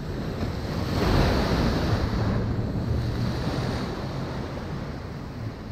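Ocean surf: a wave breaks and washes in, loudest about a second in, then eases off, with wind buffeting the microphone. A low steady hum sits underneath from about two seconds in.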